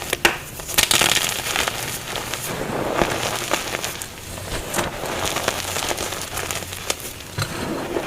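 Soft gym chalk being crushed and crumbled, a dense run of small crunches and crackles with a few sharper cracks.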